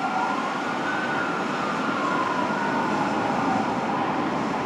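Siren of a 2007 Spartan Gladiator/Smeal fire engine wailing, its pitch rising slowly and falling, over steady engine and road noise.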